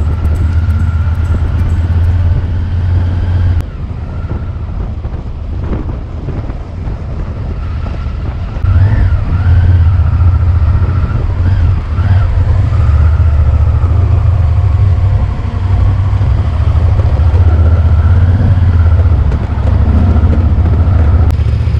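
Motorcycle engine running at riding speed, with wind and road noise. It drops quieter for a few seconds about a sixth of the way in, then rises again as the bike climbs a cobbled street.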